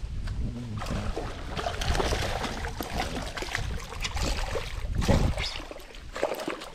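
Splashing water and knocks against a small boat as a small fish is brought in, with a louder low thump about five seconds in.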